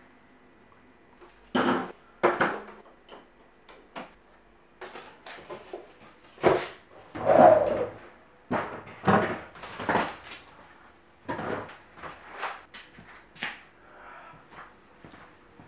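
Irregular knocks, thuds and scrapes of things being shifted around a small room, as boards and a large sheet of cardboard are lifted, handled and set down.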